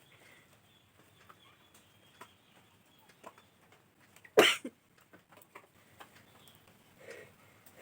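A woman sneezes once, sharp and sudden, about four and a half seconds in, set off by tickling her nose with a rolled paper twist.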